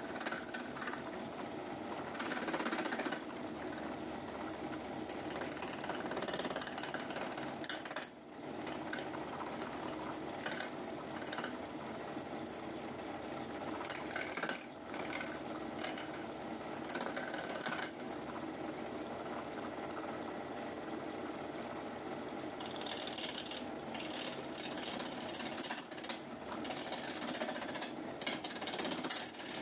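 Homemade wooden lathe, driven by an old garage motor, running steadily while a hand-held chisel cuts the spinning wooden workpiece: a continuous motor whir mixed with the scraping of the tool on the wood. It dips briefly a few times.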